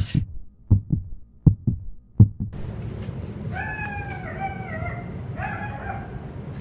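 Four heavy low thumps about two-thirds of a second apart, a heartbeat sound effect over silence. After a cut, a steady hiss with two short high, wavering cries.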